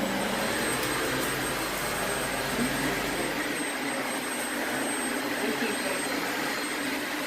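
Dyson vacuum cleaner running at full speed: a steady rush of air with a thin, high whine on top.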